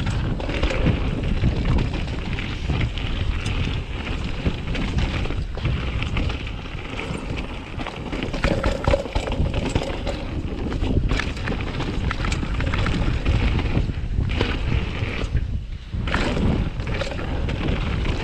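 Wind buffeting the microphone as a 2020 Norco Sight mountain bike rides fast down a dirt trail, with tyre noise on the dirt and frequent clicks and rattles from the bike over the bumps.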